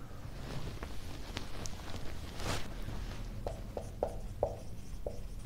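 Whiteboard being wiped clean in soft swipes, then a marker pen writing on the whiteboard in short separate strokes from about three and a half seconds in.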